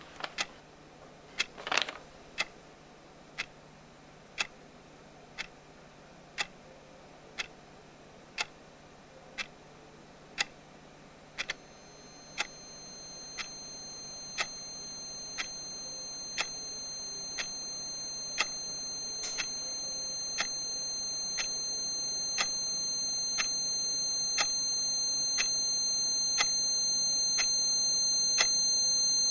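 A clock ticking about once a second. About twelve seconds in, a steady high-pitched ringing tone of several pitches comes in and swells louder and louder over the ticking.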